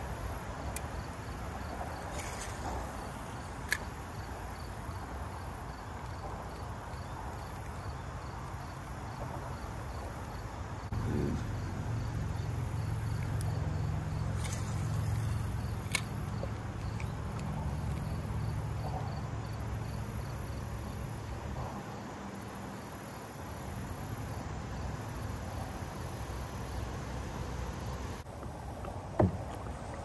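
Water sloshing and lapping against a kayak hull out on the lake, with a few sharp knocks on the boat; the loudest knock comes near the end.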